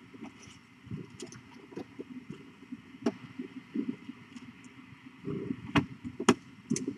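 Soft rustling and scattered small clicks from cats and kittens moving and grooming on a fleece bed, with two sharper clicks about six seconds in.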